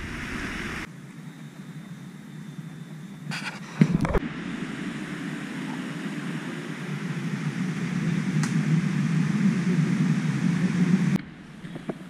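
Steady rush of a small rainforest stream and rocky cascade, its sound changing abruptly at edit cuts about a second in and near the end, with a couple of knocks about four seconds in.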